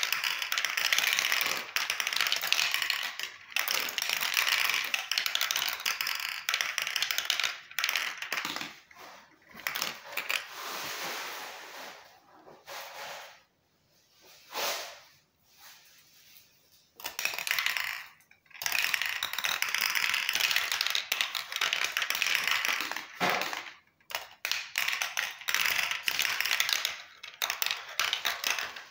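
Marbles rolling and clattering down a translucent plastic marble run, rattling fast through its towers, funnel bowl and tubes. The clatter thins to a quieter stretch about halfway through, picks up again, and breaks into separate clicks near the end.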